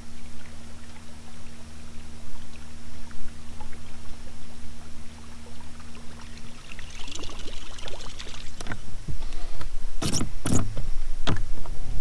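A boat's motor humming low and steady. Water sloshes and splashes, growing busier in the second half, with a few loud splashy hits near the end.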